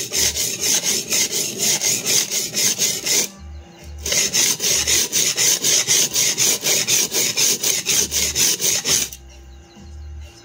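Steel cleaver blade scraped back and forth in rapid strokes on the 100-grit side of a very coarse resin-bonded diamond sharpening stone, about four strokes a second. This is grinding a new bevel into a dull edge. The strokes pause briefly about three seconds in and stop near the end.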